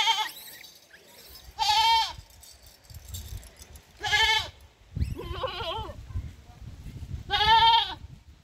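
A goat bleating repeatedly: five quavering calls about two seconds apart, one of them lower and more wavering, over a low rumble.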